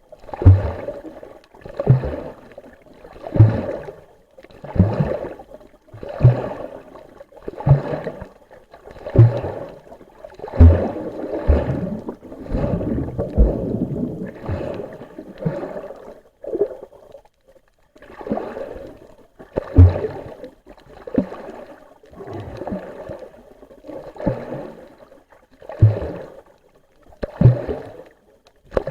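Rhythmic breathing and water movement picked up by an underwater camera: a loud rushing burst with a low thump about every second and a half, longer and denser for a few seconds near the middle.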